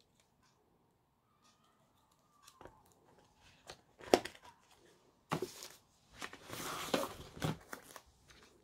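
Close-up handling of phone packaging: light clicks and taps as a coiled USB cable is set into a cardboard box tray, with one sharp click about four seconds in. Then two stretches of rustling and crinkling packaging in the second half.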